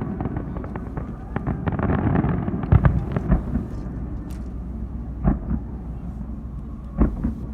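Aerial fireworks going off: a dense crackle of many small bursts for the first three seconds, then single booming shell bursts about three, five and seven seconds in.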